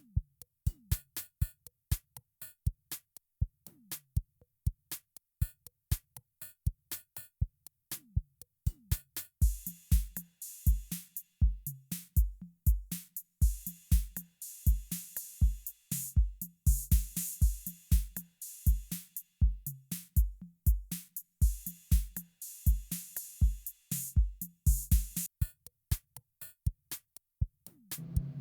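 Electronic background music: a drum-machine beat of quick, sharp clicks. A deep kick drum comes in about a third of the way through, with hissing high bursts over it.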